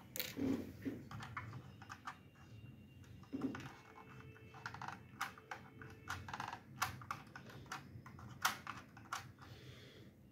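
Irregular light clicks and taps from a 1:24 scale diecast Bugatti Chiron model being handled by hand, its opening doors worked and its body pressed down.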